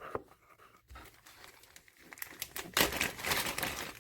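Packaging being crinkled and torn open by hand, a run of rustling and ripping that starts about halfway through.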